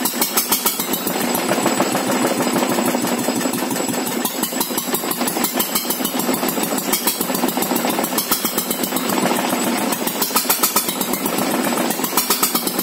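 Old Vialis stationary engine running steadily after a crank start, a rapid, even beat of firing strokes that swells louder every few seconds.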